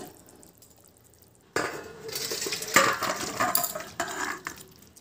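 A metal spatula scraping and clinking against a steel kadai while stirring a fish curry. The scraping starts suddenly about a second and a half in, with one sharp clink near the middle.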